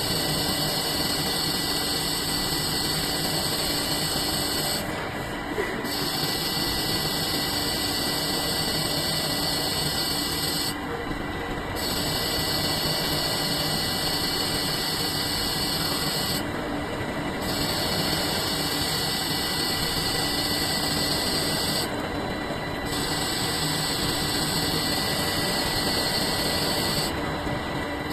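CNC machine running, cutting a cylinder into a ball: a steady mechanical drone with a high hiss that briefly drops out about every five to six seconds.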